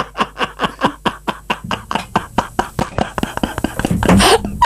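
A person laughing in a long run of quick, even 'ha-ha' pulses, about five a second, ending in a breathy stretch near the end.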